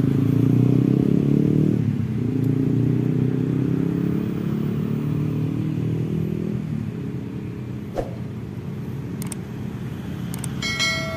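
A motorcycle engine running past, loudest in the first two seconds and fading over the next few, its pitch wavering. About eight seconds in there is a single click, and near the end a short bell-like chime from a subscribe-button animation.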